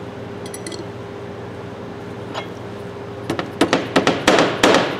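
Mallet tapping on the pivot head of a steel breaker bar: about six quick, sharp strikes in the second half, after a few light metal clinks about half a second in.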